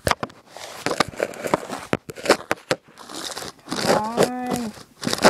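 Handling noise from fingers on the camera: rubbing, scraping and sharp clicks right at the microphone. A brief pitched tone sounds about four seconds in.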